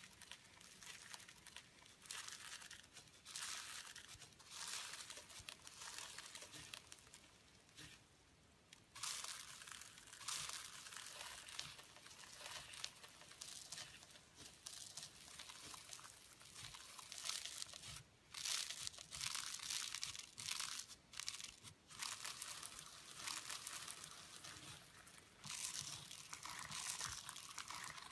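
Slime being squeezed and pressed by hand, giving crinkly, crackling noises in uneven bursts.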